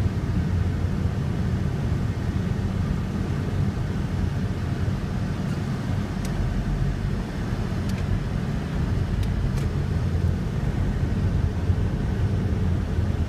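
Steady low rumble of a car driving on a wet road, heard from inside the cabin, with a few faint ticks.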